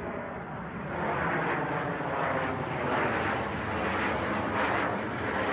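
Fighter jet flying low overhead: a rushing jet-engine noise that grows over the first second and then holds loud and steady.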